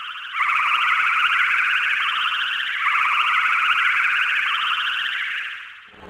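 Cartoon flying-saucer sound effect: a warbling electronic tone that swells and dips in two long waves, then fades out near the end.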